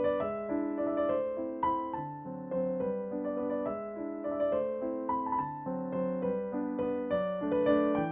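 Background music: a gentle piano melody over chords, with notes struck at a steady, moderate pace.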